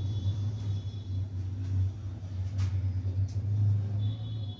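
A steady low hum runs throughout, with a whiteboard marker squeaking faintly as it writes at the start and again near the end.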